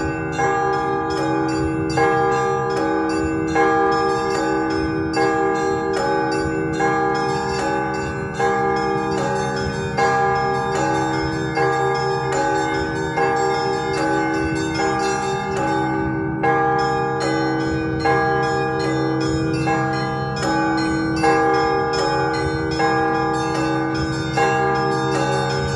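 Russian Orthodox festive peal (prazdnichny zvon): several church bells rung together in a steady rhythm, a small bell struck rapidly again and again over regular strokes of larger, deeper bells.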